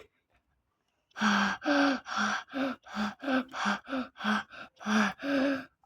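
A man's voice making a quick run of short, breathy pitched sounds, about three a second, starting about a second in after a brief silence.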